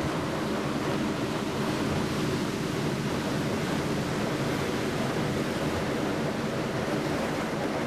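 Steady rushing noise of sea waves and wind, with no distinct strokes or tones in it.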